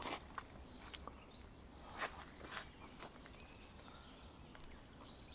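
Quiet outdoor ambience: a few faint rustles and knocks in the first three seconds, with faint chirps of distant birds.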